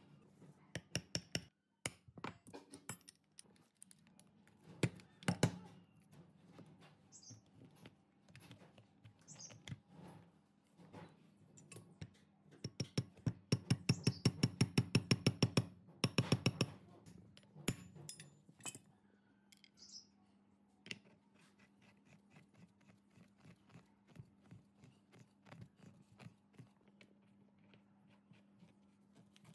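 Small hammer tapping a steel pin into the handle of a pneumatic impact wrench beside its throttle lever: a quick run of light metal taps, about seven or eight a second for some four seconds midway. Scattered clicks and clinks of parts being handled before and after.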